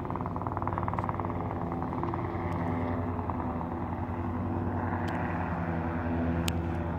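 Small light helicopter flying overhead: a steady engine drone with a rapid rotor beat.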